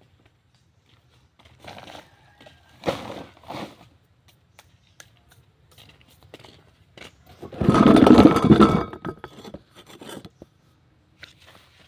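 Rustling and scraping handling noises: a few short scrapes early, then one loud, dense scrape lasting just over a second about eight seconds in.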